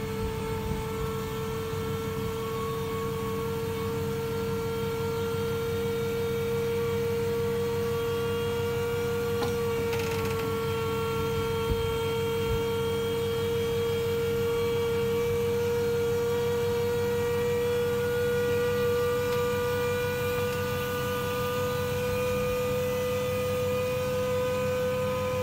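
Electric motor of a powered motorcycle lift running steadily as it tilts a motorcycle up, a constant whine over a low hum. The pitch creeps slightly higher toward the end as the platform comes level.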